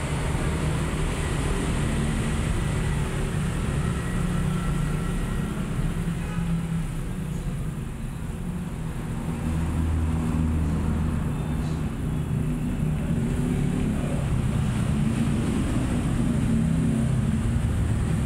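Steady low background rumble with a hiss over it; no lapping is made out above it.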